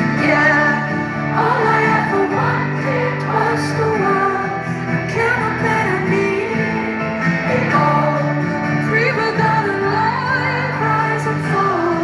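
Live pop band with a female lead singer: a sung melody over held keyboard and bass chords, recorded from the audience in a large concert hall.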